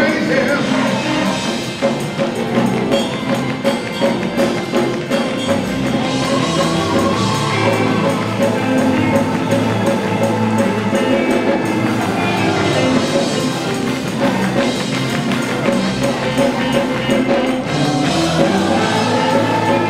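Live gospel music from a church band, with a drum kit keeping a steady beat.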